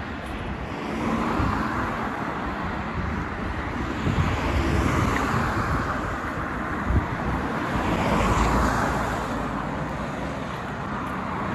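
Road traffic: cars driving past one after another on a wide road, their tyre and engine noise swelling and fading about three times.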